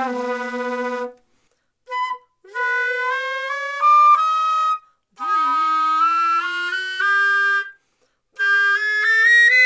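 Concert flute played in sustained long notes while the player sings into it at the same time. Her voice sounds as a second, lower pitch under the flute tone. The phrases step upward, with short breaks between them. This is the singing-and-playing exercise meant to bring the body into resonance with the flute.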